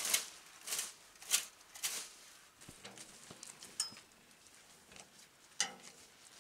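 A rake swishing and scraping through dry fallen leaves, about one stroke every 0.6 seconds for the first two seconds. Then come lighter rustles and clicks, and a single knock near the end.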